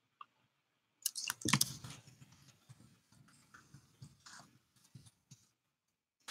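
A run of irregular clicks and light knocks, some with a dull thud, loudest between one and two seconds in and thinning out after about five seconds.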